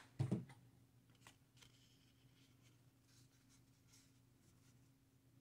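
A single low thump about a quarter second in, then faint rustling and light ticks of craft-foam petals being pressed and shaped by hand, over a steady low hum.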